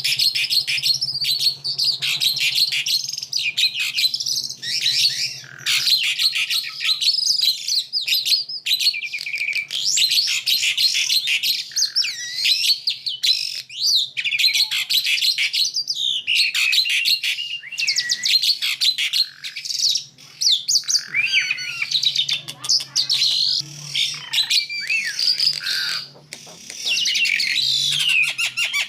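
Two songbirds singing almost without pause, answering and overlapping each other with rapid, varied high-pitched phrases, trills and chirps.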